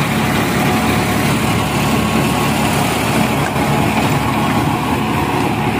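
New Holland 3510 tractor's three-cylinder diesel engine running steadily under load at working revs, driving a 10-foot rotavator whose blades churn through soil and crop stubble.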